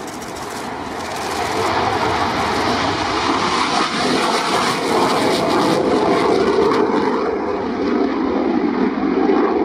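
Romanian Air Force MiG-21's turbojet running at full power in afterburner through its take-off roll and climb-out: a loud, dense jet roar that builds over the first couple of seconds and then holds steady.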